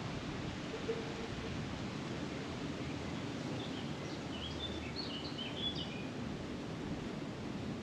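Steady outdoor background noise, with a small bird chirping a quick run of short high notes in the middle.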